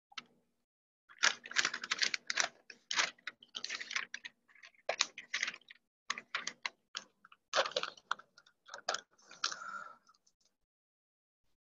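Rapid, irregular clicking and tapping in close bunches, stopping about ten seconds in, over a faint steady hum.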